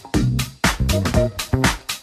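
Background music: an upbeat electronic dance track with a steady beat.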